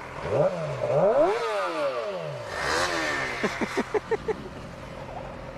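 Sport motorcycle engine revved in sharp rising and falling blips, followed about three and a half seconds in by a quick run of short rev stabs.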